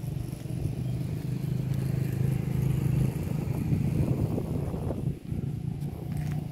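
Road traffic: a motor vehicle's engine running with a low hum as it passes. It grows louder toward the middle and dips briefly about five seconds in.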